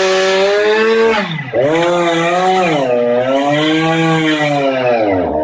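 Two-stroke chainsaw running at high revs up in a tree. Its pitch drops and picks up again twice.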